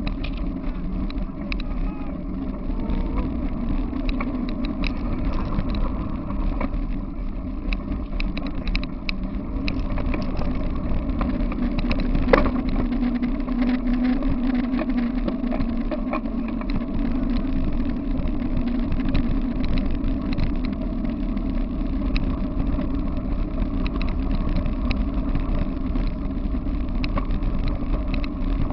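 Tyres of a dog-drawn rig rolling over a gravel path at a run, a steady low rumble full of small rattles and clicks. A single sharp knock about twelve seconds in.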